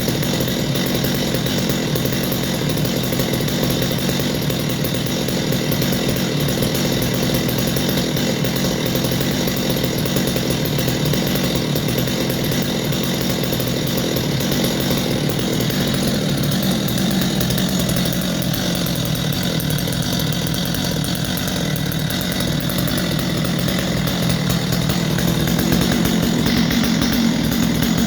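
Stihl MS250 45cc two-stroke chainsaw engine running steadily, a little louder near the end.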